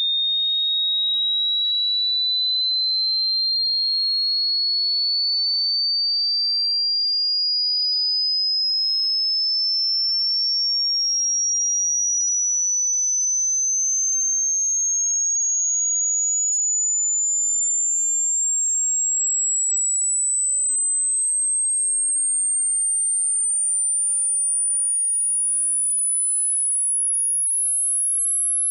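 A pure sine test tone sweeping slowly and steadily upward in small steps, from a high pitch to a very high one. It is a hearing-test frequency sweep for finding which pitches can be heard, or for matching the pitch of one's tinnitus.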